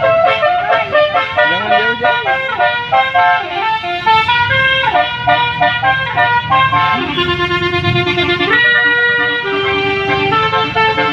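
Basuri-type telolet bus horn, a multi-trumpet musical air horn, playing a melody. Its notes step up and down in pitch, with several horn tones sounding together, and a lower note is held from about two-thirds of the way in.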